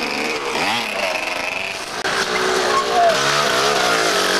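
Dirt bike engines revving up and down as riders work along a wooded trail; the sound breaks off abruptly about two seconds in and picks up again with another bike.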